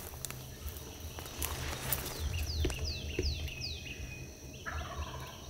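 Dawn woodland ambience: a steady high insect trill, with a bird singing a run of about five quick down-slurred notes in the middle, followed by a held note.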